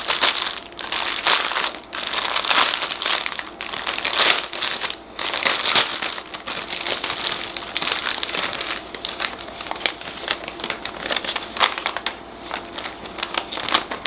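Clear plastic bag crinkling as it is handled, with the small plastic packets of diamond painting drills inside rustling against each other. Busiest in the first half, lighter toward the end.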